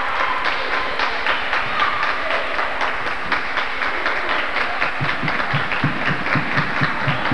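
Gymnasium game noise: crowd voices with many scattered claps and knocks. From about five seconds in, a basketball is dribbled on the hardwood floor, low thumps about three a second.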